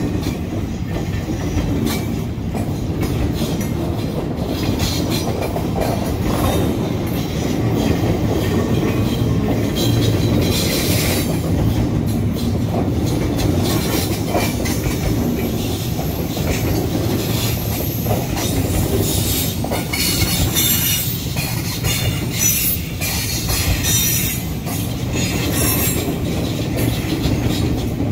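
Double-stack container cars of a freight train rolling steadily past: a continuous rumble with rapid clatter of steel wheels over the rails.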